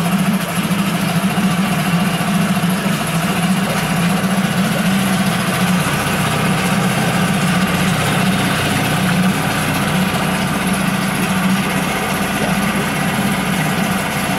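Yamaha F5 single-cylinder four-stroke outboard running steadily at idle, having caught on the second pull of its recoil starter on its first-ever start.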